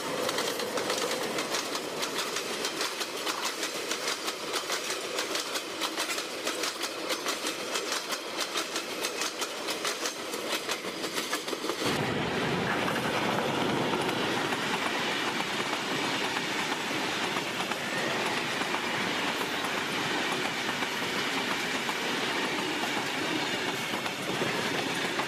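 Diesel-hauled passenger train passing close at speed, its wheels clattering in rapid, evenly repeating clicks over the rail joints. About halfway through, the sound changes abruptly to the steadier, fuller rushing clatter of another passing train's coaches.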